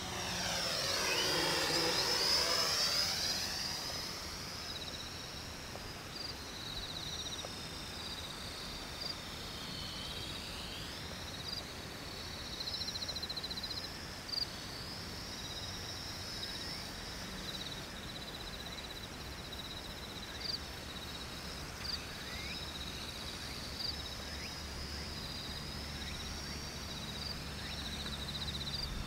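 Small X400 quadcopter passing close by in the first few seconds, its motor and propeller whine sweeping down and back up in pitch as it goes past. After it passes, insects trill steadily, and a low hum comes in near the end.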